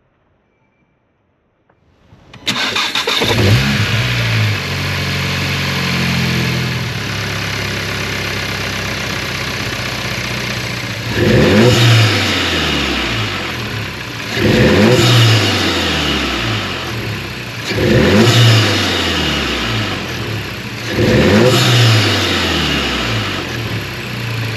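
VW Golf GTI Performance's 2.0-litre turbocharged four-cylinder, breathing through a Pipercross air intake, starting about two seconds in and settling to idle, then revved four times, each rev rising and falling back to idle, with loud intake noise.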